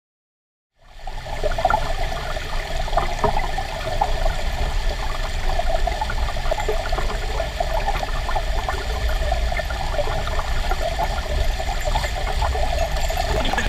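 Mountain stream water flowing steadily, cutting in abruptly about a second in after silence.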